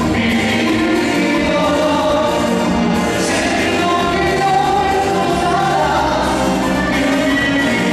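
Live band music with several voices singing, played loud and steady through the stage sound system.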